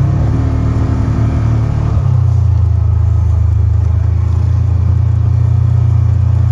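A vehicle engine running steadily under load as it drives along a snow-covered trail, with its note shifting about two seconds in.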